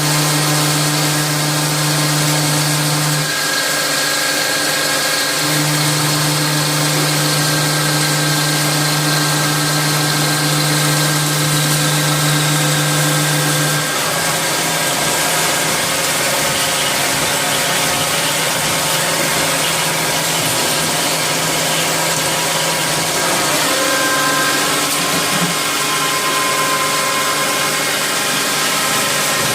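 Rayfeng 32 CNC lathe running a machining cycle: a steady machine hum over a constant hiss. Its main tone drops out and comes back a few seconds in, then changes about halfway through and again near the end.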